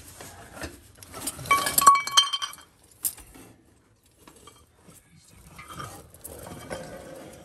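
Loose broken metal pieces of a disintegrated automatic transmission (clutch plates, bands, shards) clinking and jingling against each other as the transmission blanket holding them is worked loose, with a ringing clatter about a second in and a sharp click soon after.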